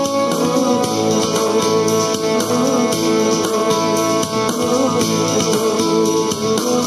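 Instrumental background music with no singing.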